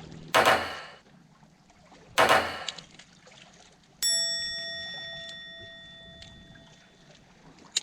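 Two short rushing bursts, then a single metallic strike about four seconds in that rings with several tones and fades away over about three seconds.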